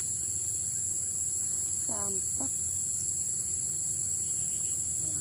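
Steady high-pitched chorus of insects such as crickets, shrilling without a break. Two brief faint calls rise above it, one about two seconds in and one near the end.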